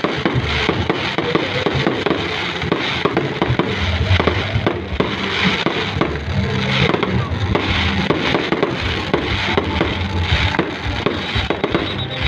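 Fireworks going off in a dense, continuous run of crackles and pops.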